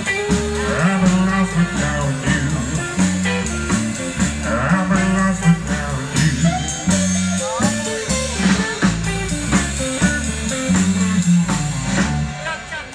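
Rock'n'roll band playing live through a PA, with a stepping bass line and drums keeping a steady beat. The music stops near the end.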